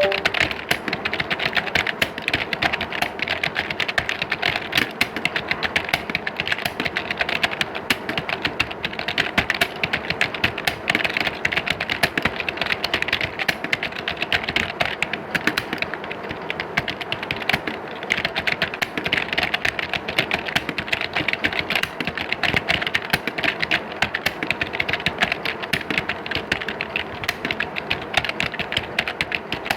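Many computer keyboards typed at once, as in an exam hall: a dense, unbroken clatter of overlapping key clicks at a steady level.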